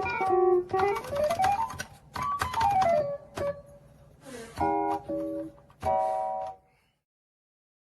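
Piano-like software instrument played from a 25-key MIDI keyboard controller: quick runs of notes sweeping down and back up, then a few short chords, stopping about seven seconds in.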